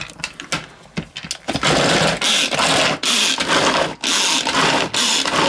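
Hand-pulled cord vegetable chopper whirring its blades through carrots and other vegetables in a plastic bowl. It makes repeated pull strokes about two a second, starting about a second and a half in after a few lighter clicks as it is handled.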